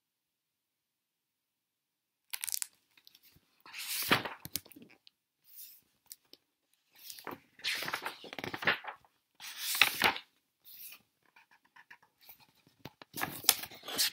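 About two seconds of dead silence, then irregular bursts of rustling and scraping handling noise, several loud scuffs a second or so apart.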